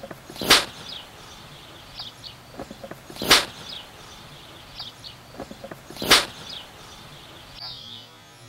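Three sharp cracks, evenly spaced about three seconds apart, with short high chirps between them.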